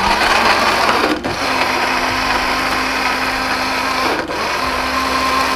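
Small electric kitchen grinder running at full speed, grinding tomatoes into a paste. It runs in three stretches, with brief stops about a second in and about four seconds in.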